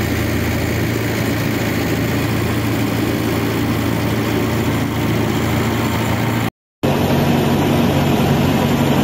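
Boat engine running steadily, heard from on board the boat. It cuts out for a moment about six and a half seconds in, then carries on.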